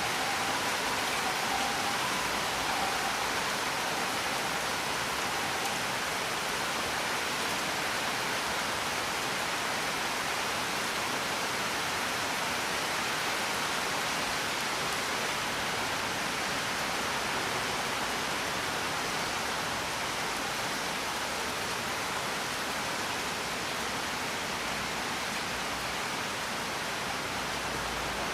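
Steady, heavy rain: an even, unbroken hiss of falling water. A few faint short high tones sound over it in the first seconds.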